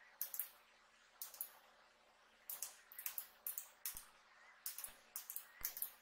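A series of short, sharp clicks, irregular and often in quick pairs, as the tactile push buttons on a homemade remote transmitter are pressed and the small 5 V relays on the receiver board switch LED bulbs on and off.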